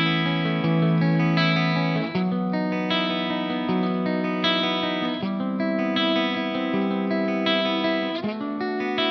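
Soloking MS-11 Classic electric guitar playing chords that ring out and change about every three seconds, with some effects on the tone.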